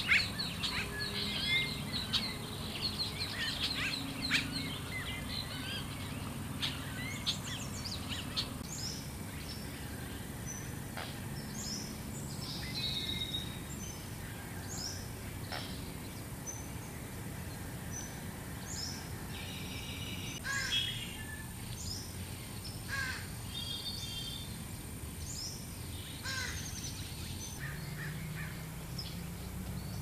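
Assorted wild birds chirping and calling, thickest in the first several seconds and then in scattered short calls, over a steady low background noise.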